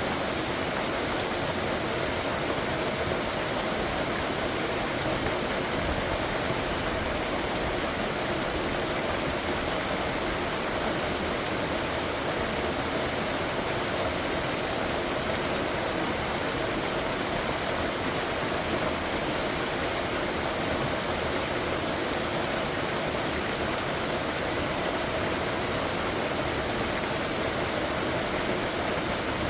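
Waterfall rushing steadily: an even, unbroken roar of falling water with no change in level.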